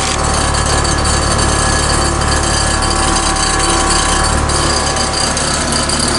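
Heil 1.5-ton heat pump outdoor unit running in heat mode: steady compressor hum under the rush of the condenser fan, loud and unbroken.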